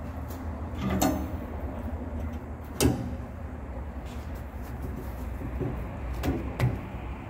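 Steel plate knocking and scraping against a steel excavator bucket as it is held and clamped into position, with one sharp metallic clank about three seconds in, a lighter knock about a second in, and two more knocks near the end.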